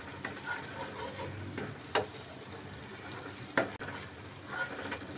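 Spatula stirring and scraping chopped garlic sautéing in butter and oil in a nonstick pot, over a low sizzle, with two sharp knocks against the pot about two and three and a half seconds in.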